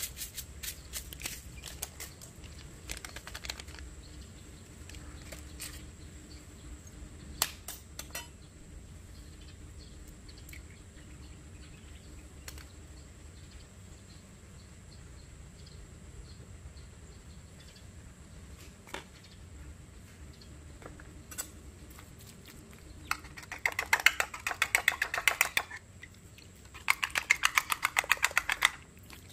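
Metal spoon mixing raw chicken pieces on a ceramic plate: two runs of rapid clinking and scraping against the plate near the end. Scattered small taps and clicks come earlier, with a quiet stretch in between.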